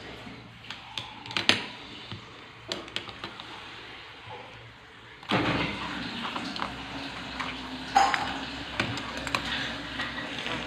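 Light taps and clicks of a kitten's paws and a ballpoint pen on a laptop keyboard and casing, the sharpest about one and a half and eight seconds in. About five seconds in, a steady rushing background noise starts suddenly and keeps going.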